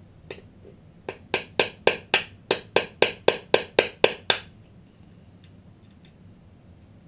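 Tool tapped into the seam between the aluminium crankcase halves of a Triumph Daytona 675 engine to break the sealant and split the cases. One tap comes first, then a run of about a dozen sharp taps at roughly four a second.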